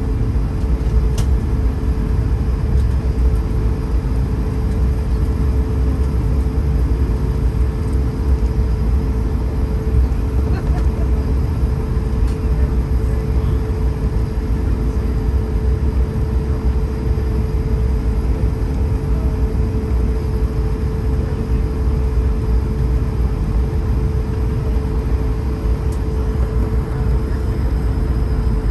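Inside the cabin of an Airbus A220-300 taxiing after landing: its Pratt & Whitney PW1500G geared turbofans run at low power, a steady drone with a constant mid-pitched hum over a deep, even rumble.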